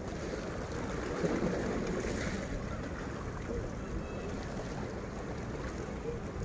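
Steady wind noise rumbling on the microphone, an even outdoor hiss with no distinct events.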